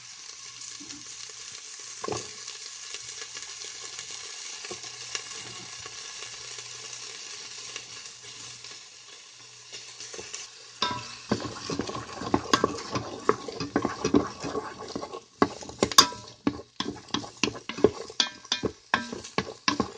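Diced pancetta and onion sizzling in hot oil in a rice cooker's nonstick inner pot. About halfway through, a utensil starts stirring them, with many quick scrapes and clicks against the pot over the sizzle.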